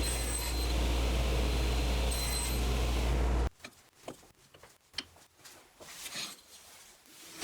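A power tool's electric motor running steadily with a low hum, cutting off abruptly about halfway through. After it, scattered light knocks and clicks of workpieces being handled.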